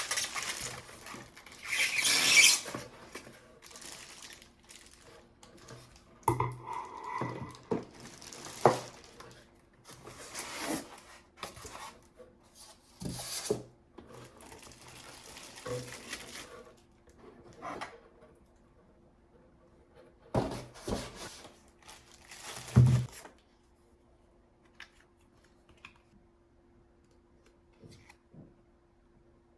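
Unboxing handling sounds of a floor lamp's packaging and parts: irregular rustling and scraping with knocks, the loudest about two seconds in and a heavier thunk near the end of the activity, after which it goes mostly quiet with a faint steady hum.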